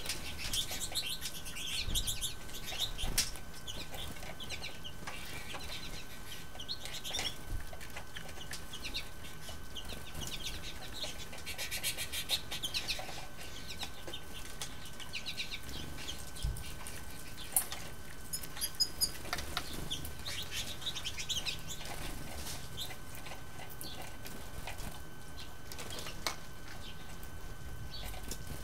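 American goldfinches chirping and twittering in short bursts, with wings fluttering as birds come and go. The calling is busiest near the start and around the middle, and thins out near the end.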